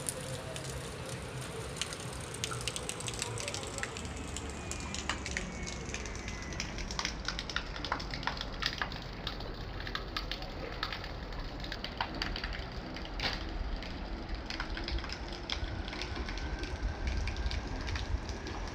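Steady rain falling, with frequent sharp ticks of individual drops striking close by.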